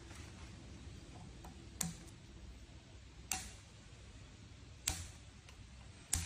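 Scissors snipping through plastic cable ties: four sharp snaps, about a second and a half apart.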